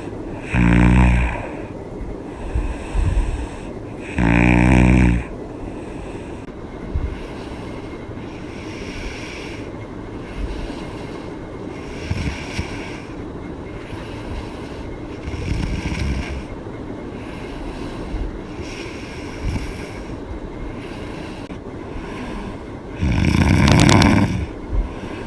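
A woman snoring with her mouth open: three loud snores, about a second in, about four seconds in and near the end, with a long stretch of quieter breathing and a few softer snores between them.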